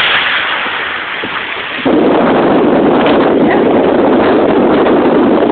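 Strong wind blowing on the phone's microphone, a loud rushing rumble that jumps louder about two seconds in.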